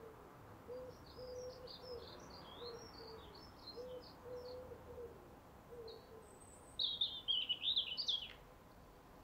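Garden birds chirping and singing, with a louder run of song about seven seconds in. Under it, a low cooing repeats until about six seconds in.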